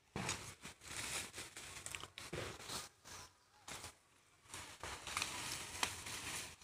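Dry sugarcane leaves and stalks crackling and rustling as cut cane is handled, with sharp snaps scattered through and a quieter lull in the middle.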